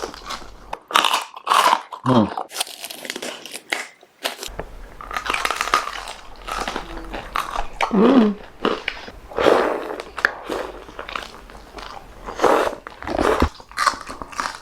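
Close-up crunching and chewing of crisp food: a run of sharp crackling bites between stretches of chewing.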